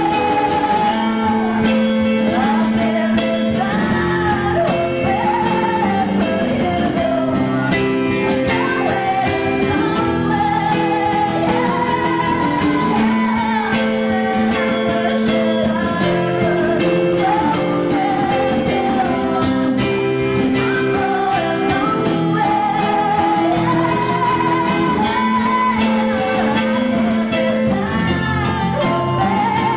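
A woman singing a song live, accompanied by acoustic guitars, with a sung melody that wavers on its held notes.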